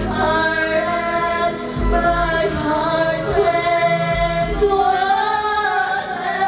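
A girl singing karaoke into a handheld karaoke microphone over a backing track, holding long notes with feeling.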